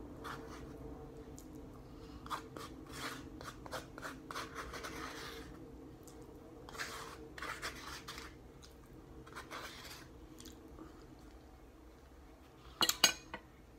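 A fork scraping the inside of a small side cup of red beans and rice, scooping out the last bites, in short irregular scrapes with some chewing. A few sharp, louder clicks come near the end.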